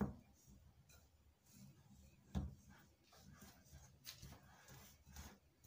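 Wire whisk stirring dry flour in a glass bowl: soft, irregular scraping strokes, with a sharper knock against the bowl at the start and another about two and a half seconds in.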